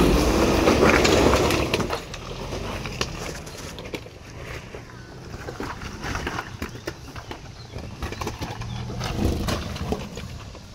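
Nissan Pathfinder R51 crawling over loose rocks: its engine pulls hard for the first two seconds, then settles to a low steady running, with stones crunching and cracking under the tyres.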